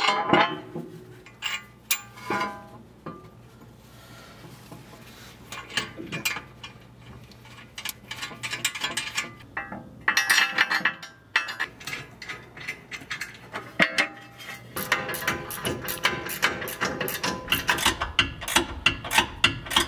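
Hand socket ratchet clicking as nuts are run down on carriage bolts holding a steel skid plate to a truck's lower control arm. A few clinks of metal hardware near the start, a burst of fast ratcheting about ten seconds in, then rapid steady clicking through the second half.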